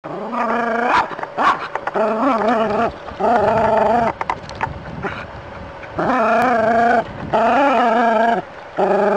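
A dog gives a series of long, wavering cries, about six in all and each close to a second long, with short gaps between them.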